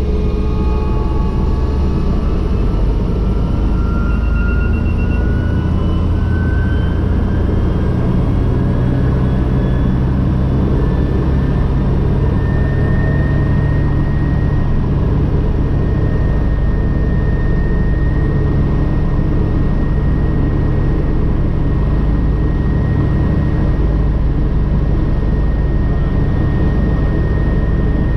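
Agusta AW119 helicopter's single Pratt & Whitney PT6B turboshaft engine and rotor heard from the cockpit, spooling up from ground idle to flight rotor speed. A rising whine over a steady low rumble climbs for roughly the first half, then levels off and runs steady.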